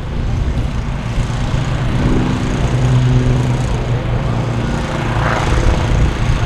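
Beechcraft T-34 Mentor's piston engine and propeller droning in an aerobatic display, with a clearer engine note for a second or two in the middle.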